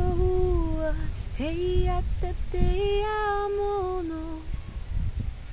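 A woman singing light language unaccompanied, in long held notes that slide between pitches, trailing off about four seconds in. A low rumble runs beneath the voice.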